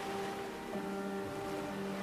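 Soft ambient music of long held notes, the chord shifting just under a second in, over a steady wash of ocean waves.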